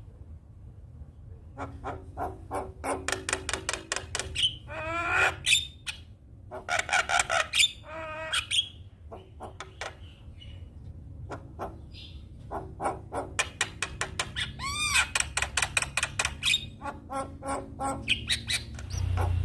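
Javan myna (jalak kebo) singing: bouts of rapid harsh clicks and rattles broken by clear whistled notes, with short pauses between bouts, over a low steady hum.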